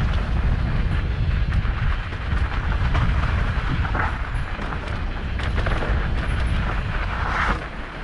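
Mountain bike descending a rough dirt trail: a steady rumble of wind and tyres on the microphone, with the bike's frame, chain and suspension clattering and knocking over bumps throughout.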